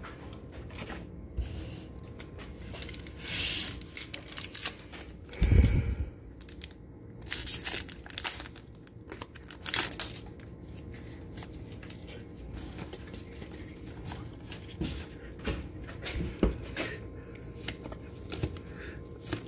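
Foil wrapper of a Pokémon trading card booster pack being torn open and crinkled, then cards rustling and clicking as they are handled, with a thump about five and a half seconds in.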